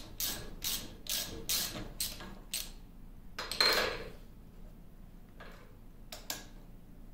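Socket ratchet wrench loosening bolts in the cast-iron lathe carriage: quick ratcheting strokes about twice a second for the first two and a half seconds, then one louder metallic clatter about three and a half seconds in and a couple of sharp clicks near the end.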